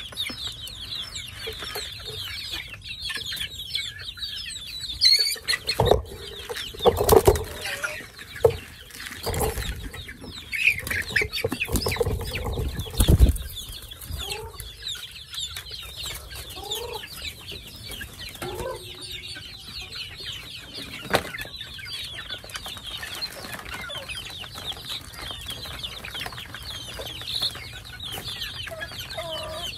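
A flock of young chickens peeping and clucking continuously, with a few lower calls. Several loud thumps and rustles come in the first half.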